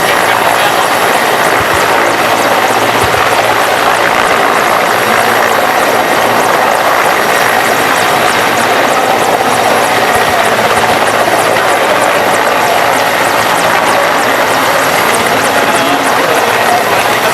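Mi-17 helicopter's twin turboshaft engines and rotor running, a loud, steady noise with a faint steady whine in it.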